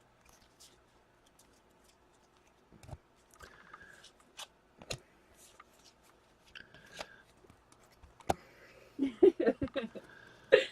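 Trading cards being handled and turned over by hand: scattered sharp clicks and soft slides of card on card. A louder cluster of short, low sounds comes near the end.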